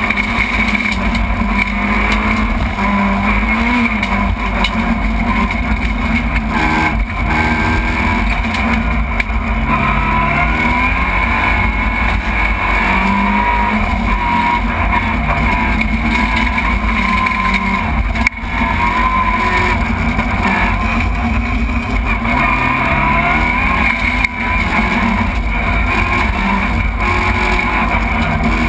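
Rally car engine heard from inside the cabin during a special stage, its pitch climbing and dropping again and again as it revs and shifts, over constant road noise. There is a sharp thump about two-thirds of the way through.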